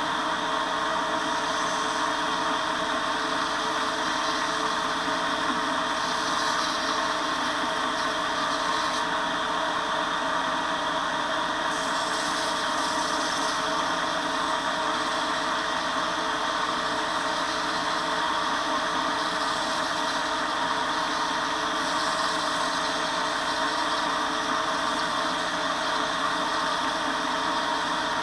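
Belt grinder running steadily: its electric motor and abrasive belt make a constant whir with a steady hum underneath.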